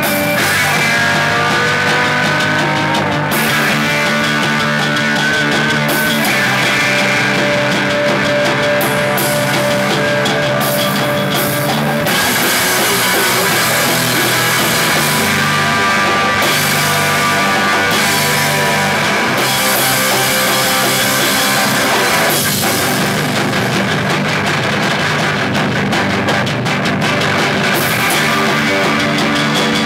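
Live rock band playing loudly: electric guitar through an amplifier over a drum kit, with the song shifting section a few seconds in and again about twelve seconds in.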